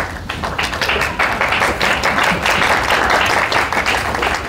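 Audience applauding: many people clapping, the clapping swelling about a second in and thinning out near the end.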